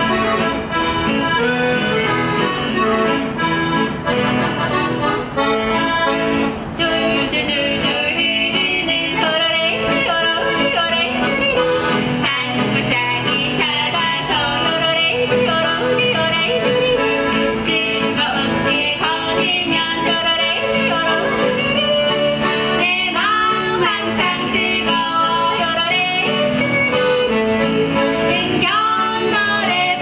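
A piano accordion and an acoustic guitar play the intro of a yodel song. From about seven seconds in, women's voices sing and yodel over them, with quick leaps in pitch.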